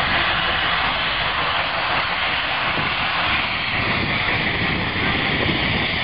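Saddle-tank steam locomotive working hard up a steep bank at the head of a heavy freight train, banked from the rear by two more engines: a steady roar and hiss of exhaust steam with a low rumble.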